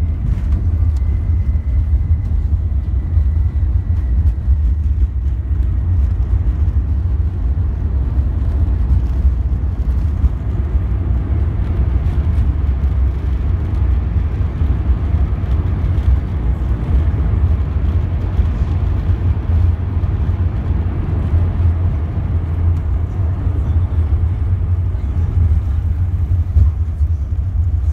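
Cabin noise of an Airbus A380-800 on its landing rollout: a loud, steady low rumble from the wheels on the runway and the engines, heard through the fuselage. The noise grows fuller about halfway through as the aircraft slows with its spoilers raised.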